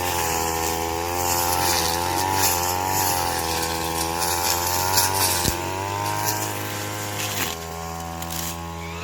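Small petrol-engine cutting machine running while cutting corn stalks, its engine note wavering up and down as it takes the load, with repeated bursts of harsh rasping. Near the end it eases off to a lower, quieter note.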